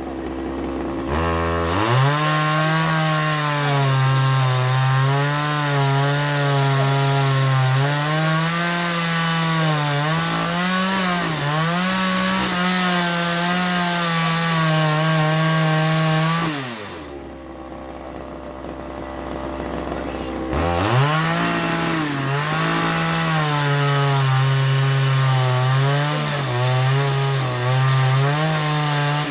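Two-stroke chainsaw revved from idle and held at high speed with its pitch wavering as it works through wood, dropping back to idle after about fifteen seconds, then revved and cutting again for about eight seconds before falling back to idle.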